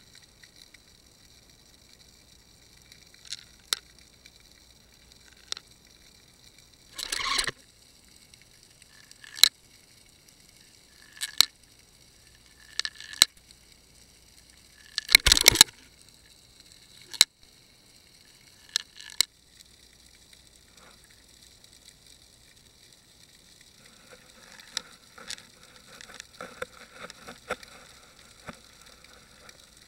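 Sharp clicks and knocks picked up underwater by a fishing camera's sealed housing while whiting bite at the bait on the short leader in front of it, the loudest cluster about halfway through. There is a steady high hiss throughout and a run of faint crackling near the end.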